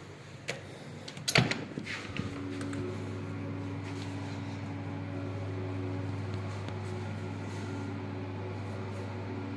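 A few clicks and a knock, then a machine starts and keeps running with a steady low hum.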